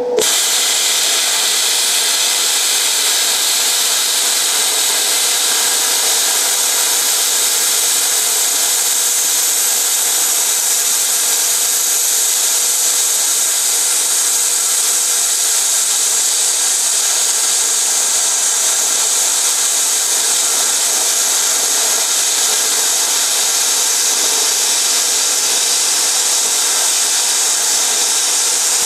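Longevity ForceCut 62i 60-amp plasma cutter, set to about 50 amps, cutting through 1-inch-thick metal plate: a loud, steady hiss of the plasma arc and air jet. It comes on suddenly as the arc starts and holds even throughout.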